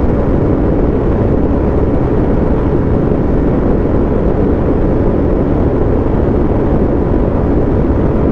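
Bajaj Dominar 400's single-cylinder engine running steadily at high revs at about 150 km/h, mixed with a steady rush of wind noise on the microphone. It holds even throughout, with no gear change or let-off.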